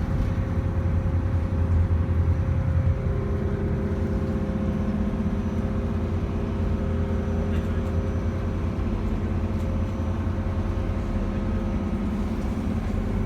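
Steady low drone of a cruise boat's engine heard on board, with several constant hums; a further steady hum joins in about three seconds in.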